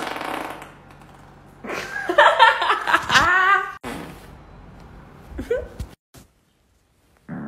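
A woman farting: a short burst at the start, then a longer, louder fart about two seconds in whose pitch wavers, and a brief rising squeak about five and a half seconds in.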